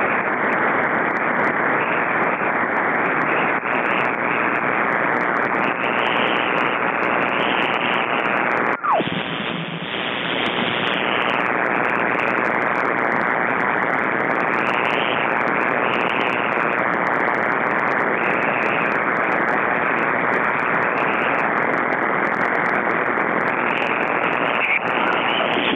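Shortwave receiver audio in synchronous-AM mode swamped by a loud, steady hiss of electrical noise from a nearby utility pole, the kind that appears in wind-driven rain and drowns out every station. It carries on unchanged as the receiver is retuned across bands, with a brief break and a short falling whistle about nine seconds in.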